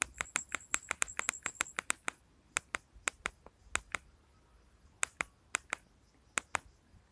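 Plastic keypad buttons of a Jio Phone feature phone clicking as they are pressed to scroll through menus. About a dozen quick presses come in the first two seconds, then single and paired clicks a second or so apart.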